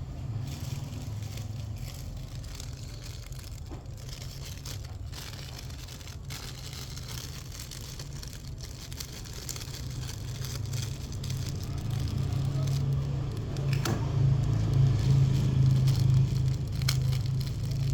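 Packing material being handled: plastic crinkling and tearing with scattered sharp clicks, over a low rumble that grows louder in the last few seconds.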